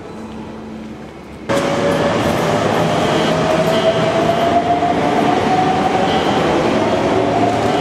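Electric train at a station platform, beginning suddenly about a second and a half in: a loud steady rumble with a motor whine that rises slowly in pitch as the train gathers speed pulling out.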